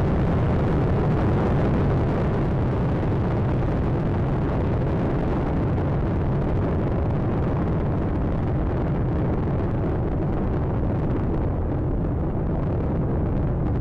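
Space Shuttle Atlantis climbing after liftoff: its three main engines and two solid rocket boosters make a steady, deep rumble. The higher hiss thins out over the second half.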